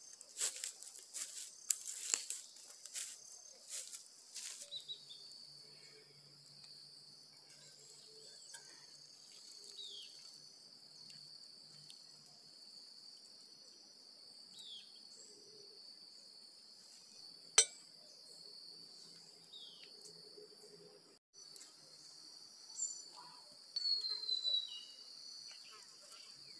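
Footsteps crunching through dry leaf litter for the first few seconds. Then a steady high drone of insects carries on to the end, with a few short falling chirps over it and one sharp click about two-thirds of the way in.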